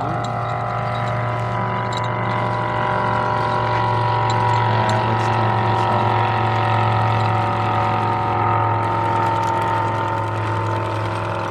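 Small alcohol-fired live-steam engine of a Wilesco model steam roller running under steam as it drives along, a steady humming buzz of even pitch that swells a little in the middle.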